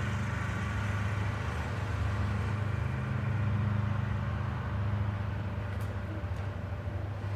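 A big truck's engine running steadily nearby, a low, even hum.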